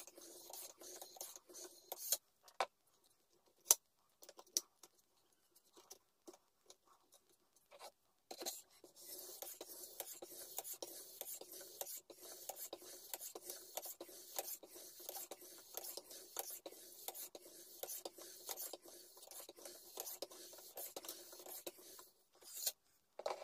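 Steel knife blade stroked back and forth over a whetstone in a sharpening jig: continuous rhythmic scraping. It stops about two seconds in, leaving a few scattered clicks, then resumes and runs until shortly before the end.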